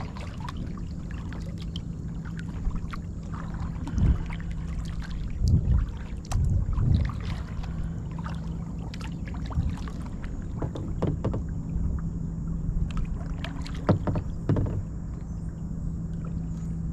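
Sounds of a fishing kayak on the water: a few knocks against the hull, two close together near the end, over a steady low hum and rumble.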